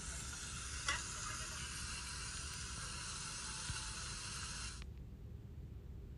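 Thin slices of marinated meat sizzling on a tabletop Korean barbecue grill, with a light click of metal tongs about a second in. The sizzle cuts off suddenly near the end.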